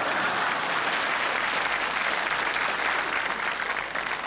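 Studio audience applauding, a dense steady clapping that thins out near the end.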